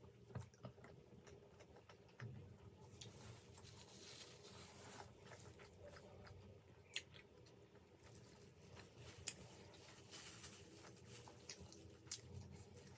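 Quiet chewing of vegetable momo dumplings: soft mouth sounds with a few sharp clicks.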